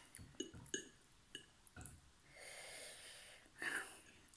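A person eating very spicy noodles: a few soft mouth clicks while chewing, then a long heavy breath out and a shorter, sharper breath near the end, breathing against the chili heat.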